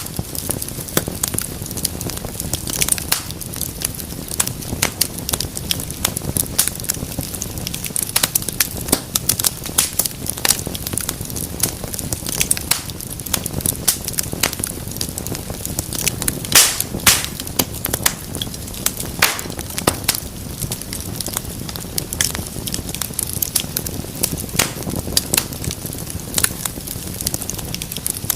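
Wood fire burning in a fireplace: a steady low rumble of flames with frequent irregular crackles and snaps, and a louder pop about seventeen seconds in.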